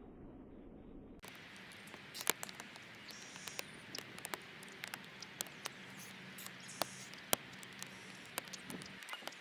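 Irregular light clicks and taps, several a second, over a faint steady low hum, with a couple of faint high chirps.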